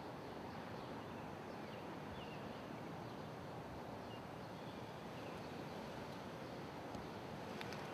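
Faint outdoor street ambience: a steady wash of distant traffic noise with a few scattered bird chirps.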